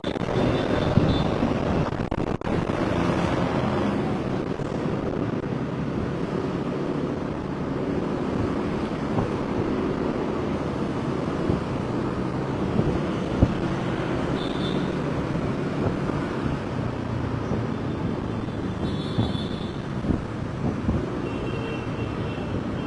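Steady vehicle and traffic noise with a low engine-like hum, and a few brief high tones in the second half.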